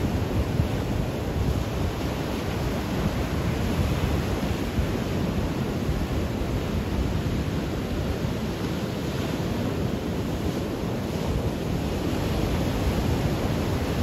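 Ocean surf breaking and washing over rocks and sand, a steady rushing noise, with wind buffeting the microphone.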